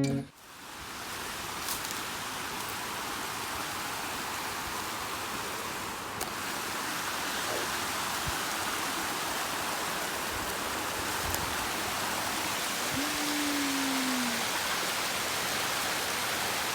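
Steady rushing water, an even hiss with no rhythm. A short low tone sounds about thirteen seconds in.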